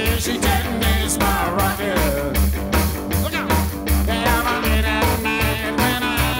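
Background music: a song with singing over bass and a steady drum beat.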